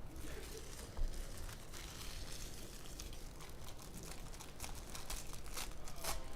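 Sports card pack wrappers being torn open and crinkled, with irregular crackling and rustling throughout and a single knock about a second in.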